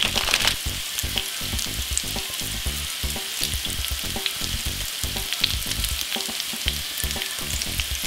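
Beef patties, bacon, pineapple rings and red onion sizzling in a cast iron grill pan, a steady hiss dotted with fine crackles.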